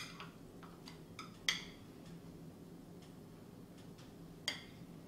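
A metal spoon clinking against a small glass jar as stuffing is scooped out: a few sharp clinks, the loudest about a second and a half in and another near the end, with lighter ticks between. A faint steady low hum runs underneath.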